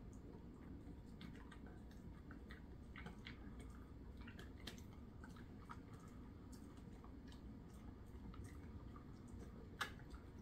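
A dog chewing a Whimzees dog treat: faint, irregular small clicks of its teeth working the chew, with one sharper click near the end.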